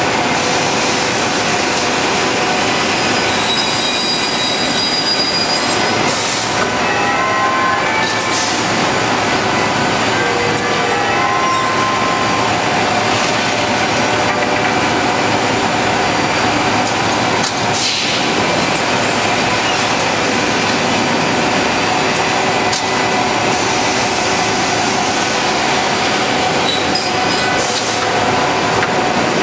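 Selco panel saw running: a steady loud mechanical noise with high whining tones that come and go, including a quick rising series of tones about seven seconds in.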